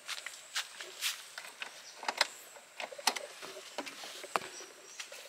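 Irregular light clicks, taps and rustles from handling gear and moving about on dry grass and leaves.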